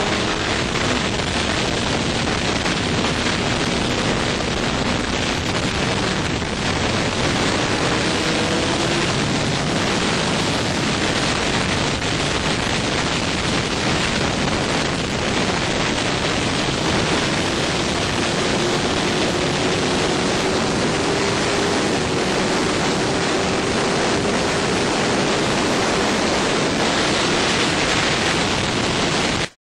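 Heavy wind rush over a microphone mounted on a Suzuki GSX-R1000 K7 superbike at speed. The bike's inline-four engine is faintly heard underneath, its pitch climbing slowly as it pulls. The sound cuts off suddenly near the end.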